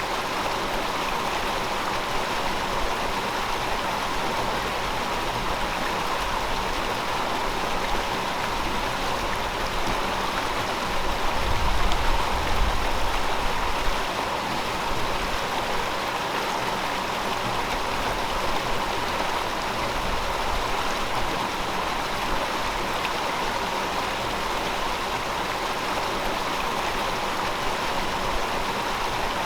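River water flowing, a steady rush of running water. A low rumble swells briefly near the middle.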